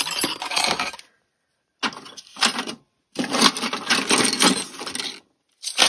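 Small tools and objects clattering and rattling as they are handled and packed into a toolbox, in four bursts of dense clicking with short silent gaps between them.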